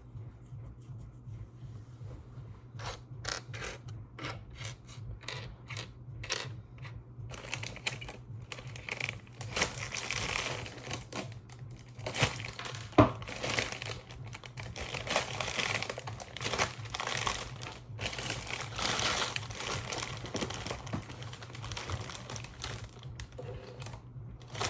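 Handling noise on a work table: rustling and crinkling with many small clicks, a run of separate clicks early, then denser rustling, and one sharp knock about halfway through.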